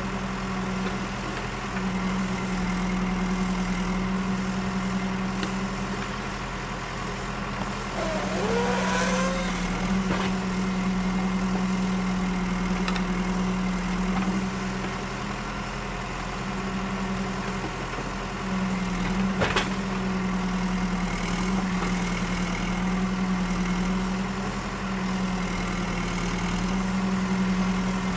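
Construction machinery engine running steadily with a constant low drone and a thin high whine. There is a brief wavering squeal about eight seconds in and a sharp knock near twenty seconds in.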